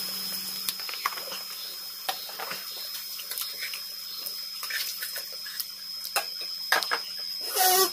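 Meat frying in a black iron kadai over a wood fire: a steady sizzle with scattered crackles and pops. Near the end comes a brief high whine.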